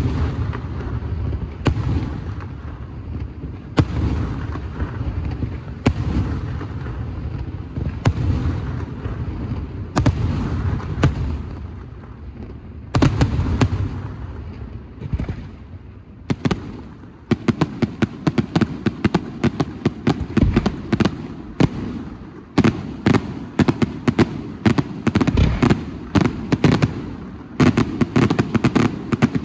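Fireworks display: shells bursting every second or two over a low rumble, then from a little past halfway a rapid run of many sharp reports several times a second.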